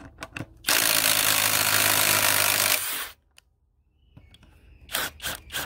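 Cordless impact driver hammering for about two seconds, then stopping abruptly. A few handling clicks come before and after.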